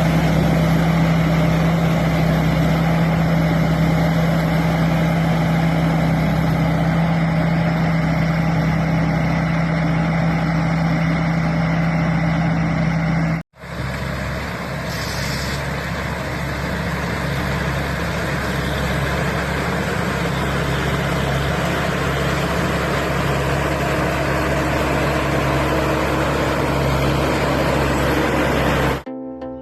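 TAMCO Pro Z3000 combine harvester running steadily, its engine and machinery making a loud, even drone. It breaks off abruptly about halfway through and carries on straight after without its steady hum.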